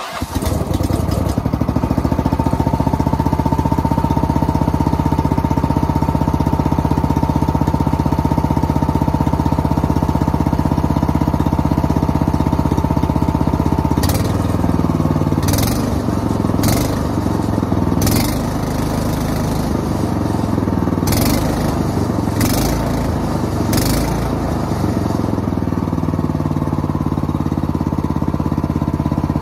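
Small gasoline engine of a utility vehicle catching and running steadily at idle, on one of its first runs after two years unused. About halfway through the note begins to waver, and about six sharp pops break in over the next ten seconds.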